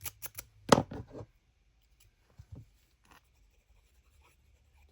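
Paper and craft tools handled on a work surface: a quick run of short clicks and taps in the first second or so, then a couple of faint rustles.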